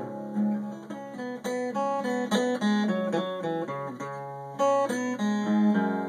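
Acoustic guitar played solo, a passage of picked single notes and chords with no singing over it.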